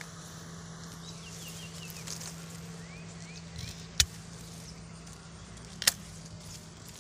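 Steady low hum of a wild dwarf honeybee (Apis florea) colony clustered on its single exposed comb. Birds chirp a few short notes in the first half, and two sharp snaps stand out about four and six seconds in.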